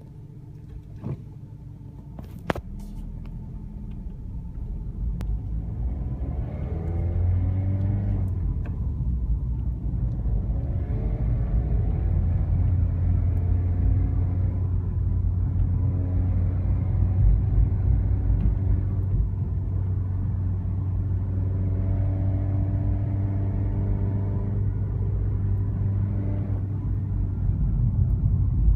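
BMW 116i E87's four-cylinder petrol engine pulling under acceleration, its note rising in pitch several times over a steady low rumble, after a couple of sharp clicks at the start. The owner reports a weird noise from it between 2000 and 3000 rpm, only when the engine is hot.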